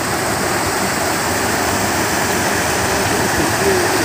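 Steady rush of water splashing from an outflow pouring into a canal.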